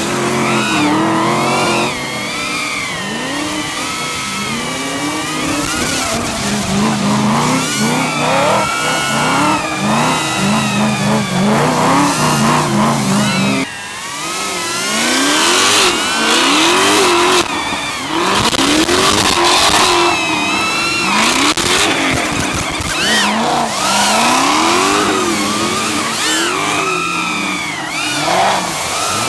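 Drift cars' engines revving hard, their pitch swinging up and down over and over, with tyres squealing and skidding through the slides. The sound changes suddenly just before the middle.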